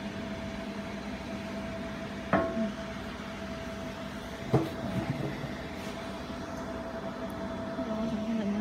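Jewelry laser welding machine running with a steady hum, with two sharp clicks a little over two seconds apart.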